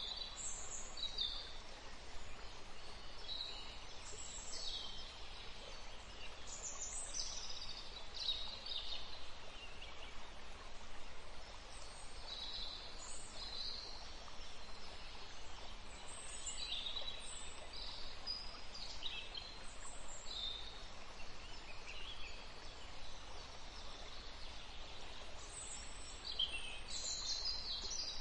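Small birds chirping on and off in short high calls, over a steady low hum of background noise.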